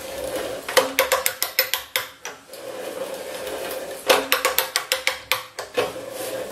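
Ratcheting hand pipe die cutting threads on 3/4-inch galvanized steel pipe. Bursts of rapid ratchet clicks, about seven a second, come on the handle's return strokes, alternating with a steadier scraping as the cutters bite into the oiled pipe.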